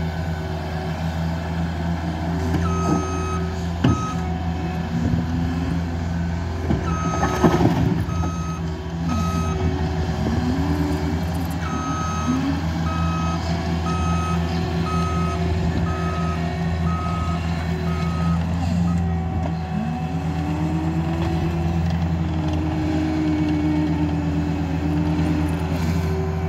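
CAT 299D3 compact track loader's diesel engine running steadily while it grades dirt, with a whine that rises and falls in pitch as it manoeuvres. Its back-up alarm beeps in three spells as it reverses, and there is a brief louder clatter about seven seconds in.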